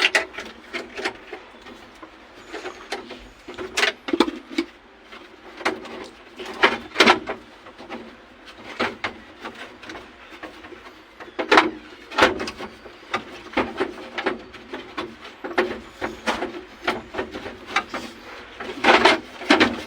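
Irregular clicks and knocks of tools and metal parts being handled while a replacement ignition switch is fitted to a backhoe.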